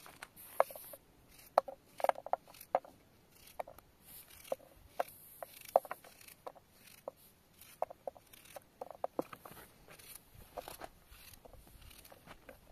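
A small knife cutting through a peeled raw onion held in the hand, making irregular crisp clicks, with the cut pieces dropping into an aluminium frying pan.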